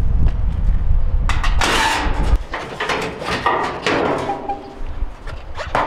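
Sheet-metal dryer back panel being worked loose and lifted off, with a run of scrapes, knocks and rattles. A low rumble underneath cuts off about two and a half seconds in.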